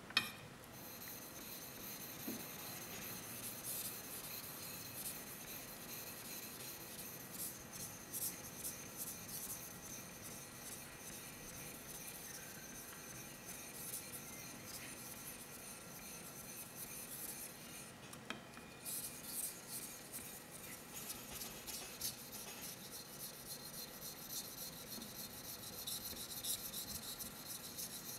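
A 240 mm gyuto blade being stroked back and forth across an Okudo suita natural Japanese whetstone: a repeated scraping rasp of steel on stone. It starts with a sharp tap as the blade meets the stone and pauses briefly about two-thirds of the way through.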